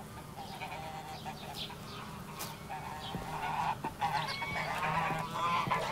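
Geese honking, a run of short calls that grow louder and more frequent toward the end.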